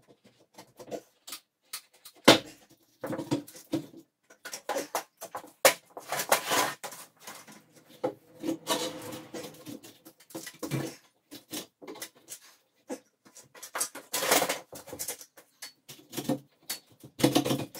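A pry bar working a false wooden beam loose from the wall and ceiling: irregular scrapes, creaks and sharp knocks of wood and metal. The sharpest knock comes about two seconds in.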